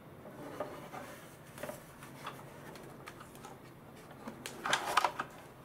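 Hard plastic box-shaped popcorn bucket handled in the hands: scattered light taps, clicks and rubbing of the moulded plastic, with a quick run of louder clacks near the end.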